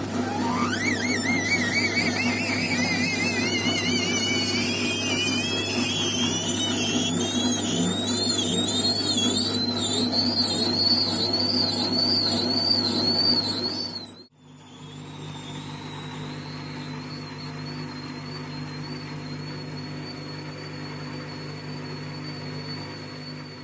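Washing machine squealing during its spin cycle: a high squeal that rises in pitch as the drum speeds up and wavers rhythmically about once or twice a second, over a low motor hum. After a cut about 14 seconds in, a steadier, quieter squeal continues at a higher spin. The squeal started after the heating element was replaced.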